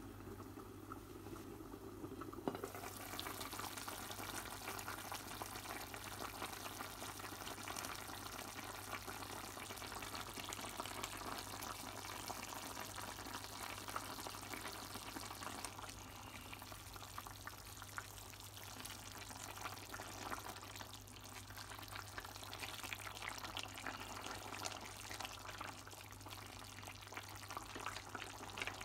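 Beef-tendon stew simmering in a hammered aluminium pot: a steady fine crackle of bubbling and sizzling over a low steady hum. It is quieter for the first couple of seconds and fuller after a single clack about two and a half seconds in.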